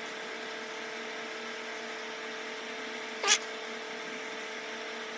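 Steady hum with a light hiss, and one brief sharp rising squeak-like sound a little over three seconds in.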